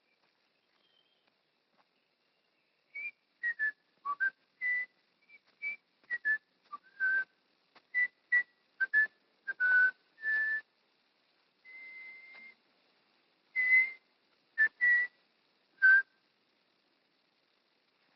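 A person whistling a tune by mouth: a string of short, breathy notes that step up and down in pitch, with one longer held note partway through. It begins after about three seconds of near silence and stops a couple of seconds before the end.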